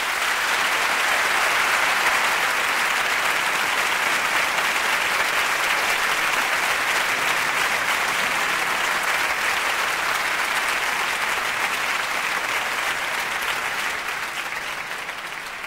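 Concert audience applauding steadily, dying away near the end.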